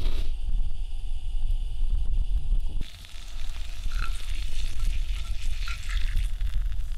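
Spare ribs sizzling on a grill over a wood fire, with a low rumble underneath. About three seconds in, the sizzle turns brighter, with scattered crackles and pops.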